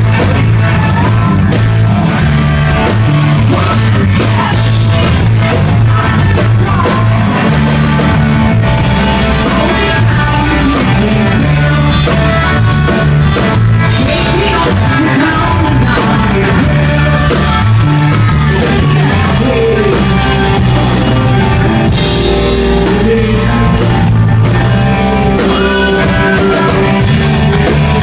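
Live rock band playing loud: distorted electric guitar, bass and drum kit, with a high, wailing male lead vocal over them. The sound is a phone-style audience recording from the crowd, loud and dense.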